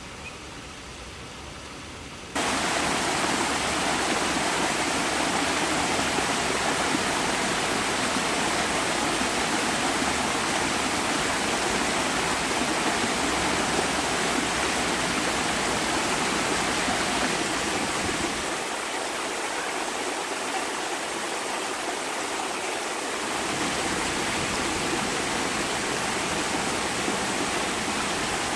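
Waterfall, a steady dense rush of falling water. It jumps abruptly louder about two seconds in, and the low rumble drops away for a few seconds past the middle.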